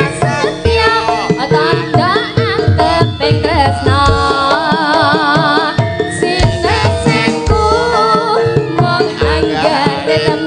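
Javanese gamelan (karawitan) music. A voice sings ornamented lines with vibrato over steady sustained metallophone tones and frequent hand-drum strokes from the kendang.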